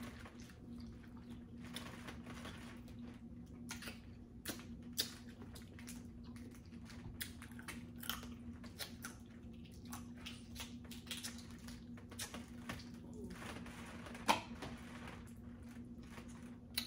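Eating a seafood boil: scattered small cracks and clicks of crawfish and shrimp shells being broken and peeled, with chewing, over a steady low hum.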